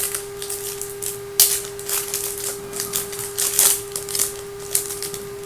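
Trading-card pack wrapper crinkling and cards being handled, in irregular sharp rustles and clicks, the loudest about a second and a half in, over a steady low hum.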